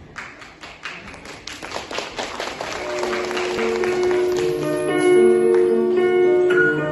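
Audience clapping, then about three seconds in the act's backing music fades in and grows louder: held low chords with short high chiming notes over them.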